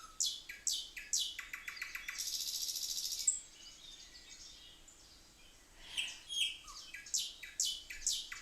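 Nightingale singing: phrases of quick falling whistles and fast rapid-fire repeated-note trills, the first ending in a buzzy rattle about three seconds in. A lull of a couple of seconds follows, then the song starts again about six seconds in.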